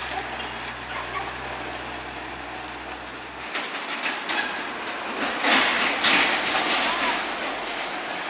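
Heavy trucks on the road: a truck engine's steady low hum, which cuts off abruptly about three and a half seconds in. It gives way to a broader wash of truck engine and road noise, with louder surges about five and a half and six seconds in.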